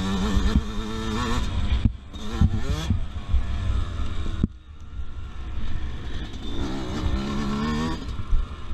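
Yamaha YZ125 two-stroke 125 cc dirt bike engine revving up and down as the throttle is worked while riding, easing off briefly about two seconds in and again around four and a half seconds, then climbing again, over a steady low rumble.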